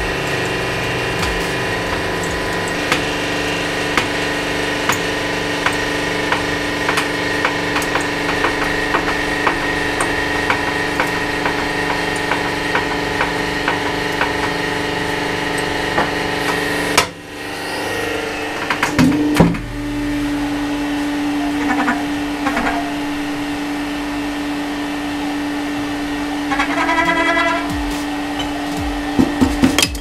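Hydraulic pump motor of a home-made hydraulic press running with a steady hum, with light clicks and crackles while a hardened steel padlock is held under load. A little past halfway the sound drops out abruptly and a few knocks follow, then the motor runs on with a single steadier hum as the ram lifts.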